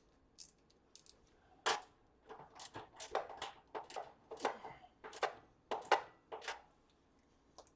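Stove parts and hardware being handled during reassembly: a run of about a dozen irregular light clicks and knocks, the sharpest about a second and a half in.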